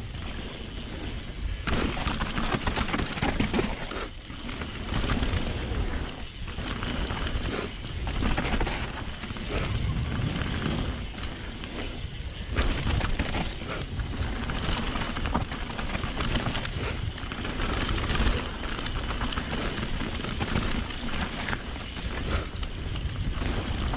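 Mountain bike ride down a rough trail: wind rushing over the microphone, swelling and fading, with frequent rattles and knocks from the bike over bumpy ground.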